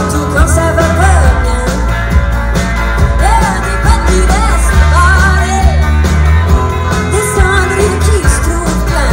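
Music: a rock song with a singer's melodic lead vocal over a heavy, steady bass.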